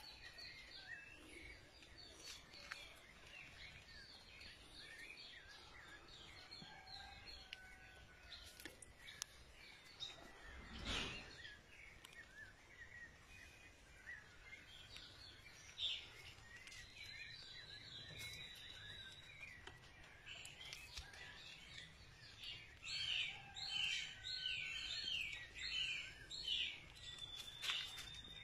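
Songbirds chirping and calling over a faint steady outdoor background, with a quick run of repeated chirps near the end. A single brief thump about eleven seconds in.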